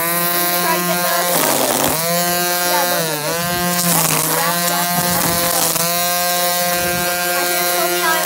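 String trimmer (weed eater) running at full speed with a steady high buzz. Its pitch dips briefly twice in the first few seconds.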